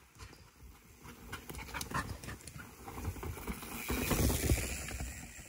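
Mountain bike passing on a dirt and rock forest trail: knobby tyres rolling and knocking over rocks and roots, growing louder as it goes by about four seconds in, then fading.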